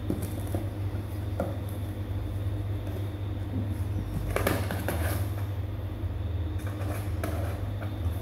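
Kittens' claws scrabbling and scratching at a cardboard box, with scattered scrapes and knocks, the loudest about four and a half seconds in, over a steady low hum.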